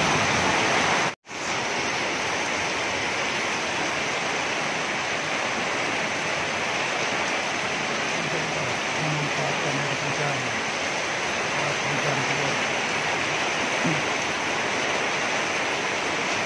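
Heavy tropical downpour: a steady, even hiss of rain falling on roofs and the ground, with runoff pouring off the roof edges. The sound cuts out completely for a moment about a second in, then carries on unchanged.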